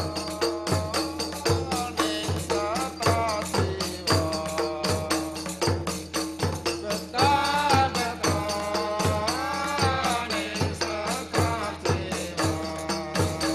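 Rodat music: frame drums and a low drum keep a steady beat a little faster than one a second under dense jingling hand-drum strokes, with a voice singing a wavering, chant-like melody over it.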